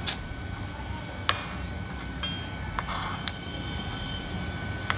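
A metal slotted spoon clicking and scraping against an iron kadai as fried cashews are lifted out of hot ghee: a handful of sharp clicks, the loudest right at the start, over a low steady hiss.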